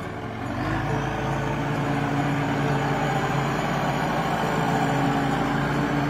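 JCB 3CX backhoe loader's Perkins diesel engine running as the machine drives past close by. It gets louder over the first couple of seconds, then holds steady.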